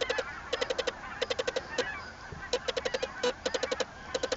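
A large flock of migrating geese calling overhead, many honks overlapping into a continuous chatter. Over it, short runs of quick sharp ticks repeat about every two-thirds of a second.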